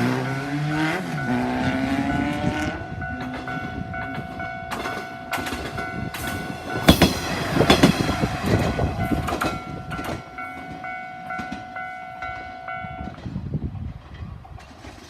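Japanese level crossing warning bell ringing in a steady, even rhythm while a Tenryu Hamanako Railway diesel railcar passes. The railcar's wheels clatter over the rail joints, loudest about halfway through, and the bell stops a couple of seconds before the end.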